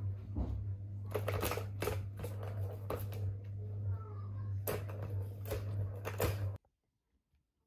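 Plastic ball-track cat toy clattering as kittens bat at it: irregular clicks and knocks of balls and paws on the plastic tracks over a steady low hum. The sound cuts off suddenly near the end.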